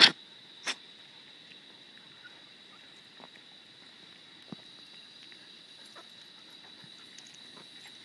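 A dog makes two short, sharp noises about 0.7 s apart, the first one loud. After that it is quiet but for a faint steady high whine and a few soft ticks.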